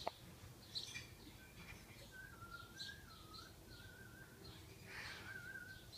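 Faint bird calls: a thin warbling tone that wavers up and down, heard twice, with scattered short higher chirps.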